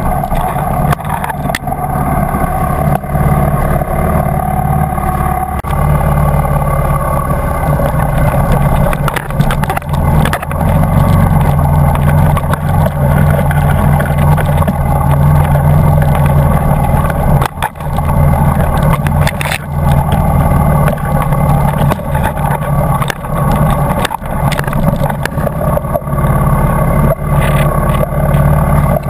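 Dirt bike engine running steadily under way, with occasional sharp knocks from the bike hitting bumps on the trail.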